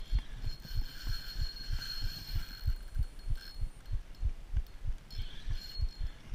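Daiwa Freams spinning reel cranked steadily while playing a big fish: a rhythmic low thumping about four times a second from the turning handle, with a faint high whine coming and going.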